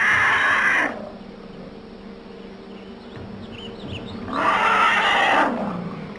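Two loud animal cries, each about a second long, one at the start and one about four and a half seconds in.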